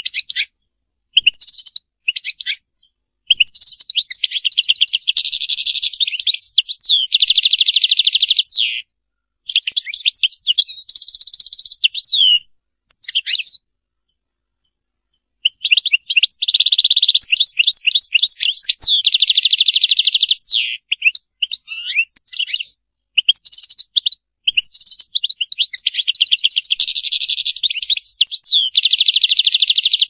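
European goldfinch singing: twittering phrases broken by long, rapid buzzing trills, with a pause of a second or two about halfway through before it resumes.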